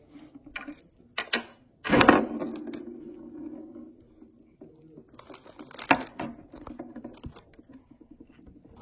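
Small plastic toys being handled: scattered clicks and knocks, with a loud knock about two seconds in followed by a low, buzzing rattle that fades away over several seconds.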